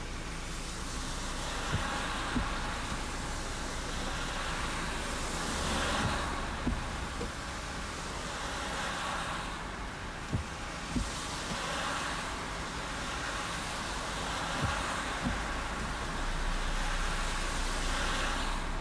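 A car driving through heavy rain: a steady hiss of rain and wet tyres on the road that swells and fades about every three seconds, with a few light knocks.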